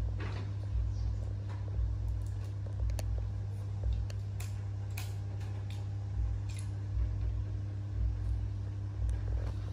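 A steady low hum with soft low thuds about once a second, and a few faint light clicks scattered through it.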